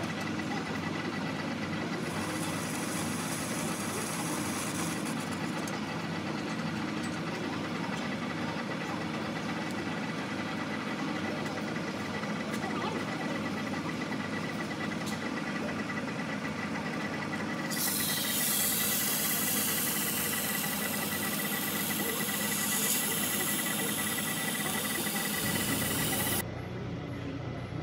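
Metal lathe running, turning down a repaired electric-motor shaft, with a thin steady high whine over the machine noise. A harsh hiss joins in briefly a couple of seconds in and again for about eight seconds in the second half, and the sound changes abruptly near the end.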